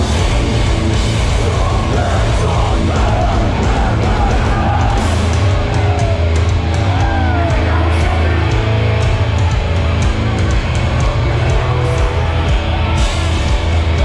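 Hardcore band playing live at full volume, heavy guitars and drums with a vocalist shouting into the microphone.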